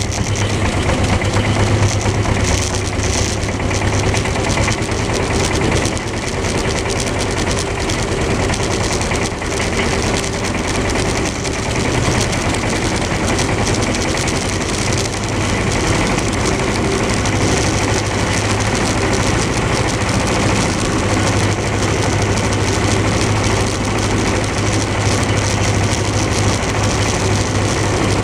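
Kramer KA15 tractor's MWM diesel engine running steadily while the tractor pulls its mower and trailer across the field; a hard, loud engine note throughout.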